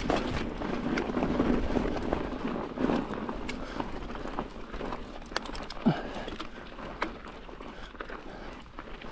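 Crunching on a gravelly dirt trail: a mountain bike's knobby tyres rolling over gravel and leaves for the first few seconds, then quieter with scattered crunches and clicks.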